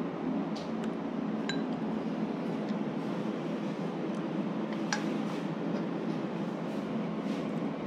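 A few light clinks of chopsticks against stainless-steel bowls and a metal tray, the sharpest about five seconds in, over a steady low hum.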